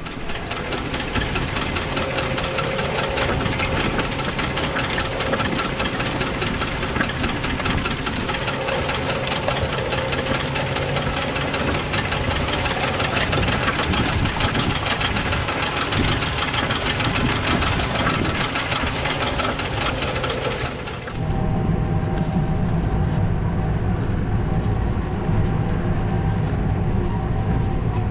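Case Maxxum 150 tractor's six-cylinder diesel engine running steadily while pulling a four-furrow plough. About twenty seconds in, the sound switches abruptly to a deeper, more muffled engine note.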